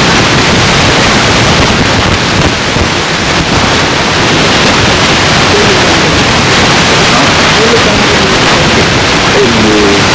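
Loud, steady hiss of static noise on the recording, with faint traces of a voice under it in the second half.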